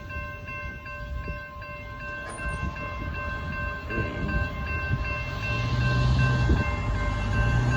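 Grade-crossing bells ringing steadily while an Amtrak Texas Eagle diesel passenger train approaches and passes. The train's rumble grows louder through the second half, with a steady low drone coming in about two-thirds of the way through.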